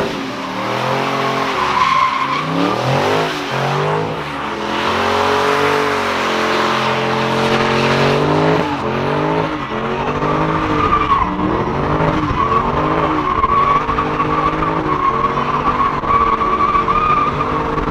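A car drifting: its engine revs up and down again and again while the tires squeal continuously through the slide.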